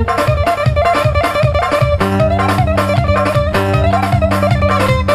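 Saz (long-necked bağlama lute) playing a fast plucked melody in an instrumental passage, over a steady beat and held chord tones.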